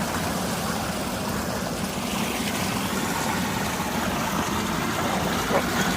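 Steady rush of water from a flooded, overflowing irrigation channel beside rice paddies.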